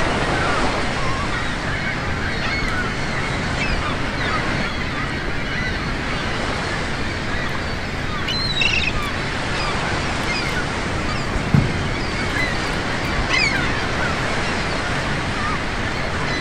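Steady rush of ocean surf, with a few faint short high chirps now and then and one soft thump about two-thirds of the way through.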